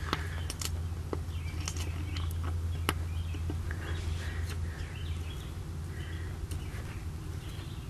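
Steady low hum with a few faint light clicks and faint bird chirps.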